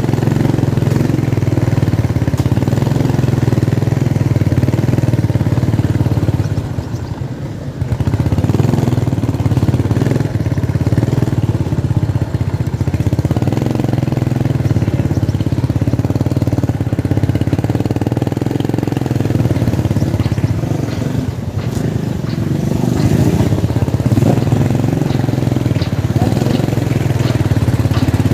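Motorcycle engine running steadily under way, dropping off briefly twice as the throttle eases.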